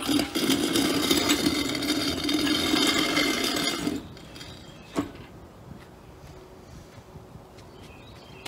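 The rear axle and torque tube of a 1953 Chevrolet are dragged across the ground out from under the frame, making a steady, loud metal scraping for about four seconds. A single sharp knock follows about a second later.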